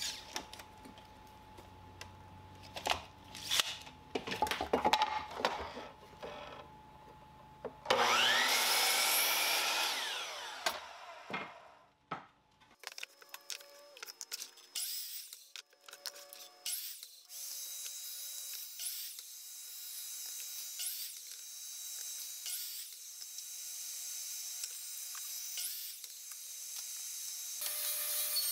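A miter saw cutting a cedar fence picket. Knocks from the board being handled come first, then about eight seconds in the saw's motor spins up with a rising whine and winds down after the cut. More light knocks follow, then a quieter steady noise.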